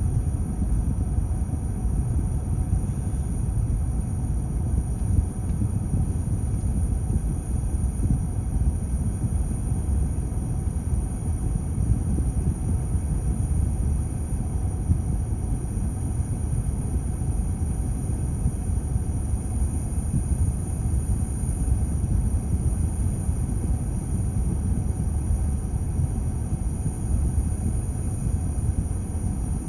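Steady low rumble inside a car standing at a red light: the idling engine and cabin noise, even throughout, with a faint steady high-pitched whine above it.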